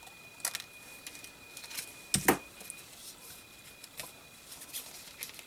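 Light clicks, taps and rustles of paper and craft pieces being handled on a tabletop, with one louder knock about two seconds in.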